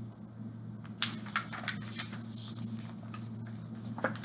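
A picture book being handled and its pages turned: a few soft paper rustles and light taps over a steady low hum.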